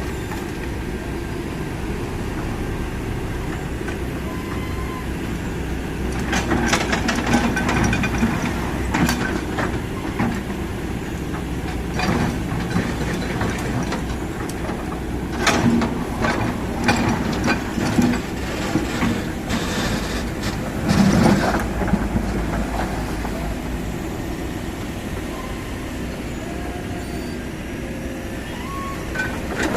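Kobelco SK200 excavator's diesel engine running steadily, with irregular knocks and clanks from the machine at work, some coming in quick clusters.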